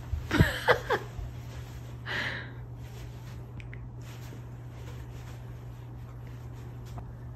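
A man's brief vocal sounds in the first second, like a short hum or chuckle, then a breathy exhale about two seconds in, over a steady low hum.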